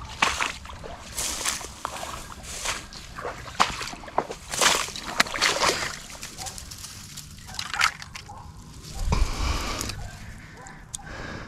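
Footsteps wading through shallow marsh water, a run of irregular sloshes and splashes, busiest in the first half.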